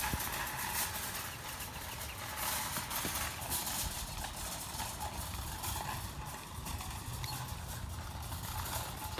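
Footsteps on asphalt with the rattle of a metal shopping cart's wheels as it is pushed along the road, an irregular clatter of small knocks.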